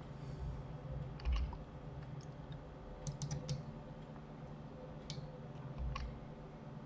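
Computer keyboard keys pressed in scattered, separate strokes, with a quick run of about four keystrokes about three seconds in, over faint steady room tone.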